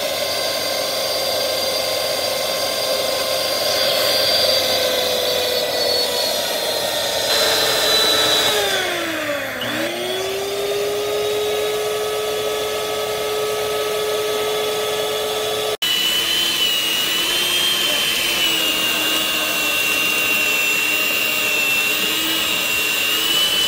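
Dash DCSM250BK compact stand mixer's electric motor running with a steady whine. About ten seconds in the pitch sinks and then climbs back up. After a brief break about sixteen seconds in, it runs on steadily at a lower pitch.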